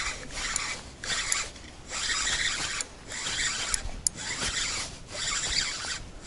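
Spinning reel being cranked to bring in a hooked fish, a rasping whir in several bursts of a second or so with short pauses between them.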